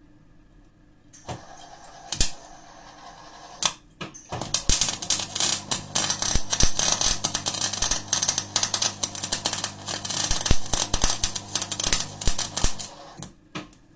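Cebora Snap-MIG welder's arc on steel angle iron: a few sharp pops as the arc strikes and stutters on starting, then from about four seconds in a steady, rapid crackle of short-circuit MIG welding with a low hum underneath, which stops abruptly about a second before the end.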